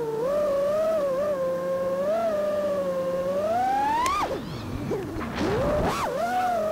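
FPV freestyle quadcopter's brushless motors and propellers whining as one pitched buzz that rises and falls with the throttle. About four seconds in the pitch climbs steeply and then drops off sharply, going quieter for about a second before a quick rise and fall, then settling into a steady whine.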